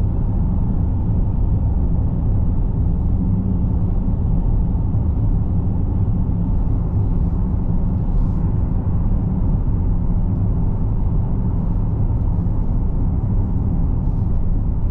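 Steady low rumble of a car driving at road speed: tyre and engine noise heard from inside the cabin.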